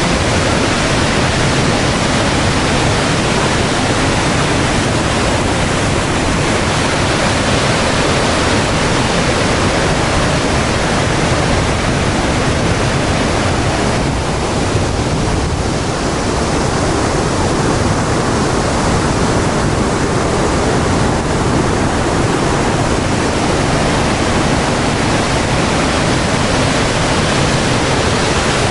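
Saut du Doubs, a waterfall of about 27 m on the river Doubs, pouring into its plunge pool: a loud, steady rush of falling water, a little duller for several seconds midway.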